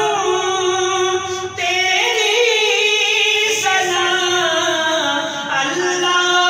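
A man singing a hamd, an Urdu hymn in praise of God, into a handheld microphone, holding long notes that bend and turn in pitch.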